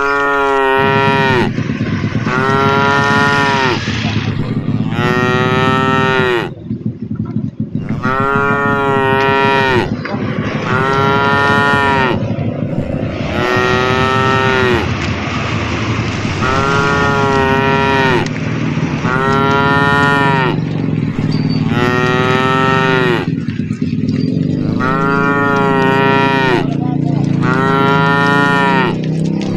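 Cattle mooing over and over, a long call roughly every two seconds, each one rising and then falling in pitch.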